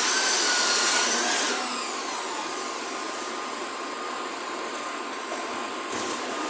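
Steady whirring machine noise filling a large factory hall. A thin whine wavers and fades away over the first second and a half.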